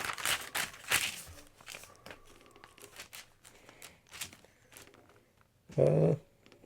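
Paper pages rustling as they are leafed through, loudest in the first second and a half, then fainter scattered rustles and small clicks. A short voiced sound about six seconds in.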